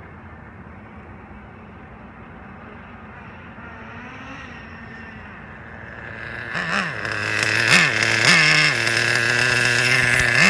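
Traxxas Nitro 4-Tec RC car's nitro engine, faint and distant at first, then idling loudly close by from about six seconds in. Four short throttle blips send its pitch up and back down.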